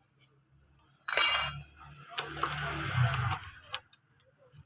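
A sharp, ringing metallic clink about a second in, then a second or so of metal scraping and rattling, ending in a click: hand work fitting the timing chain and cam sprocket on a CD70 engine.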